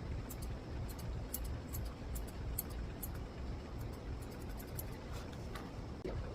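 Grooming scissors snipping hair between a dog's toes: a string of faint, irregular snips over a low steady hum.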